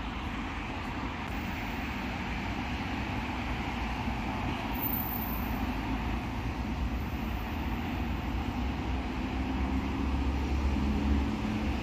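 Steady outdoor traffic noise: a low rumble of passing vehicles, getting a little louder towards the end, where an engine hum joins in.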